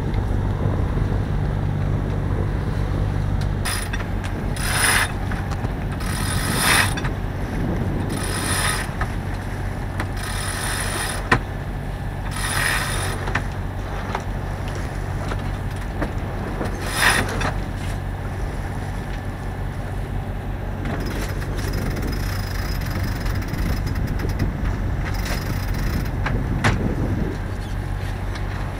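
A sailboat's sheet winch being cranked in a series of short spells, its ratchet clicking, as the sails are trimmed. Under it runs the steady low hum of the boat's inboard diesel engine.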